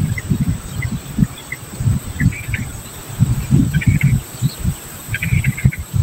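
Irregular low rumbling buffets of wind on the microphone, with faint short high chirps in small clusters a few times.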